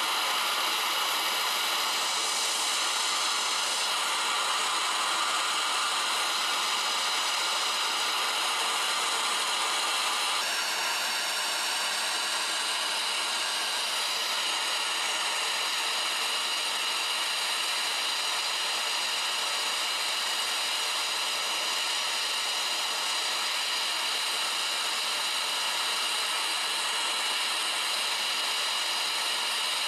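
Gas torch flame hissing steadily while melting silver in a ceramic dish, its tone shifting slightly about ten seconds in.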